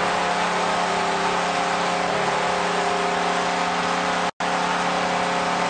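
Arena goal horn blaring steadily after a home goal, a held chord of several tones over a loudly cheering crowd. The audio cuts out for a split second about four seconds in.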